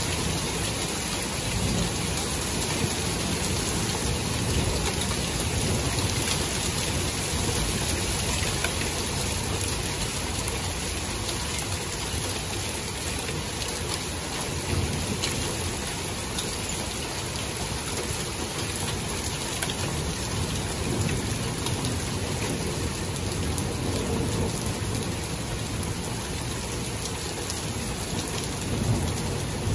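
Thunderstorm: steady rain hissing down, with low rolls of thunder that swell and fade several times, building again near the end.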